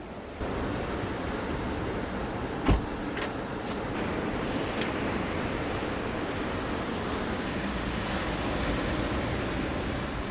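Steady wash of sea waves and wind. About three seconds in comes a single sharp thump, the loudest sound, followed by a few light clicks.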